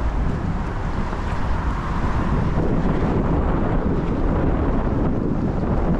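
Storm wind buffeting the microphone: a steady rushing noise that is strongest in the low end.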